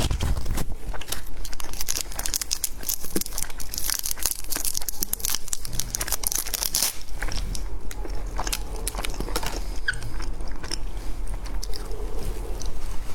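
Candy being crunched and chewed, a dense run of crisp crackles that is busiest in the middle.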